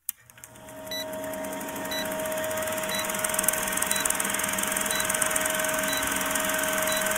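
Old film projector sound effect for a countdown leader: a steady mechanical clatter with crackle and a low hum, marked by a short high tick once each second as the numbers count down.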